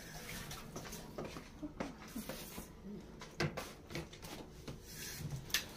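Faint handling noises in a quiet room: scattered small clicks and knocks, with a few soft murmurs.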